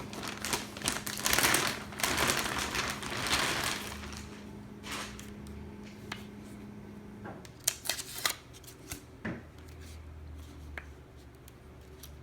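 Rustling and clicking as a replacement laptop battery is handled, dense for the first few seconds, then a few scattered sharp clicks. A faint steady hum stops about seven seconds in.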